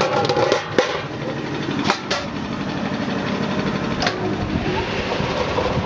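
Stainless-steel potato processing machinery running with a steady mechanical hum. A few sharp metal knocks come about a second in, twice near two seconds and once about four seconds in.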